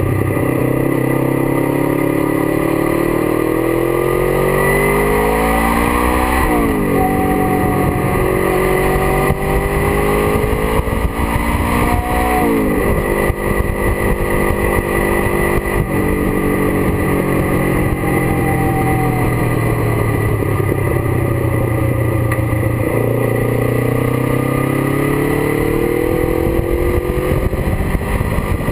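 Kawasaki GPZ 500 parallel-twin motorcycle engine under way, revving up and shifting up twice in quick succession, about six and about twelve seconds in, then easing off and pulling harder again near the end.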